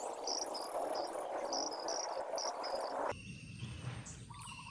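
Insects chirping in short high pulses, about three a second, over a steady hiss. About three seconds in the sound changes abruptly to a quieter background of steady insect trills.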